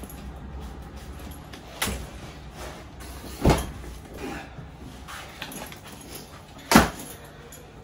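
Knocks and light clatter of a suitcase and backpack being handled, with three sharper knocks about two, three and a half and seven seconds in, the last the loudest.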